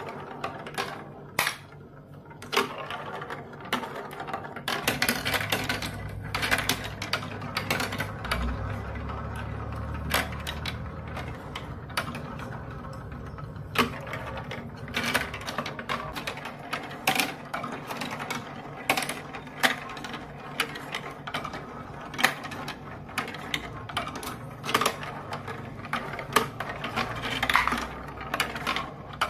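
Marbles rolling and clattering through a plastic building-block marble run: a steady rolling sound with frequent sharp clicks as they drop onto and knock against the track pieces, and a low rumble for several seconds near the start.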